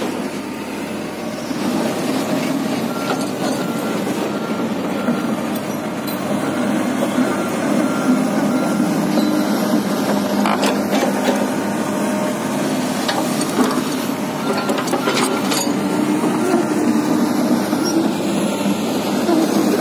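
Komatsu PC300-8 excavator's six-cylinder diesel engine running steadily as the machine travels on its steel tracks, with a few sharp knocks from the tracks and a faint repeating high tone through the middle.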